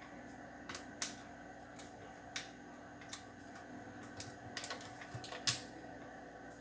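Faint, scattered light clicks and taps of bottles and jars being handled on a kitchen counter, with the sharpest one about five and a half seconds in, over a faint steady hum.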